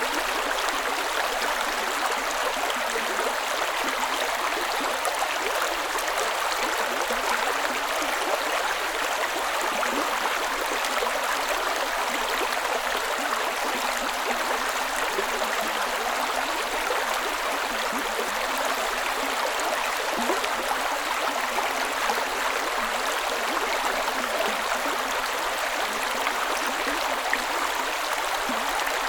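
A creek running and splashing over rocks, a steady even rush of water with fine gurgling detail.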